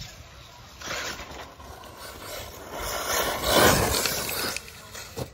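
Off-road RC car driving past close by on a dirt track, its motor and tyres on loose dirt swelling up and fading, loudest about three and a half seconds in, after a briefer swell about a second in.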